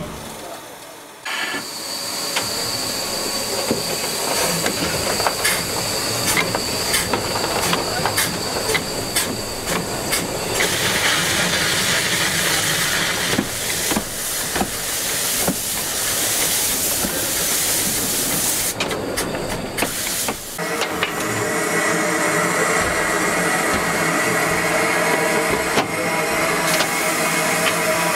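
Steam locomotive's running gear working slowly, with a continuous hiss of steam escaping around the cylinders and scattered metallic clicks from the rods and valve gear. The steam rush grows stronger about a third of the way in. In the last third a steady pitched tone sounds over the hiss.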